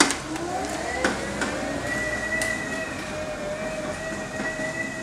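Electric power wheelchair's drive motors whining as it pulls away, the pitch rising over about the first second and then holding steady, with a couple of light clicks.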